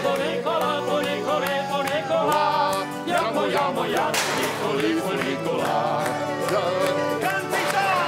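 Live tarantella played on acoustic guitar and accordion, with singing, and several sharp metallic crashes of metal trays thrown onto the floor, the strongest about four seconds in.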